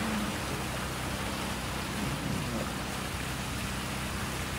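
Steady hiss of a car's tyres on a wet road, heard from inside the moving car.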